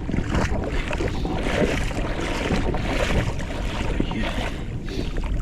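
Wind buffeting the microphone in a steady low rumble, over water sloshing and splashing close by.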